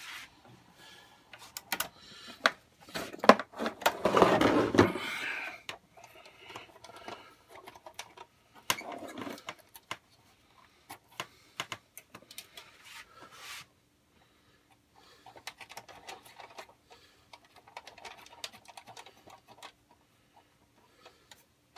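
Handling noises as speaker wire and the metal amplifier case are worked by hand: irregular clicks, taps and rustling, with a louder stretch of rubbing and scraping about four seconds in.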